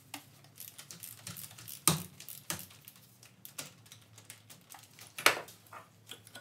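Metal clicks and clinks from a socket, extension and half-inch breaker bar as a tight oil pressure sensor is broken loose from the rear of an LS engine block, with two sharper clacks about two seconds and five seconds in.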